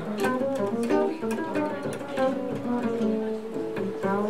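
Live jazz played on upright bass, plucked, and a hollow-body archtop guitar, with a stream of short picked notes over sustained bass tones.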